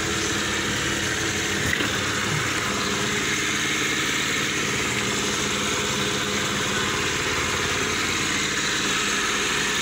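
Piaggio Zip 4T 50cc scooter's single-cylinder four-stroke engine idling steadily.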